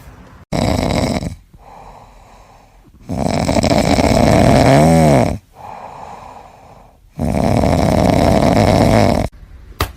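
Loud snoring: three long snores a few seconds apart, with quieter breaths between them.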